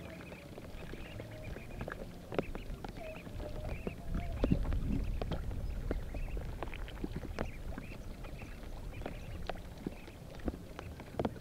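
Ducklings peeping in short repeated chirps amid scattered clicks, splashes and a low rumble of water.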